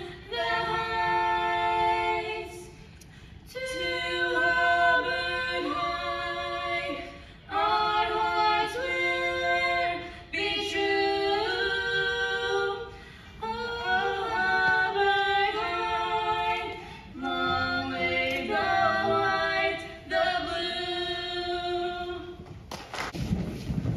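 A female voice singing unaccompanied into a microphone, in held phrases of a few seconds with short breaths between them. Near the end the singing stops and a low rumbling noise takes over.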